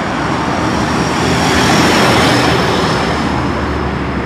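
Road traffic noise: a steady rush of passing vehicles that swells as one goes by about two seconds in, with a thin high whine held throughout.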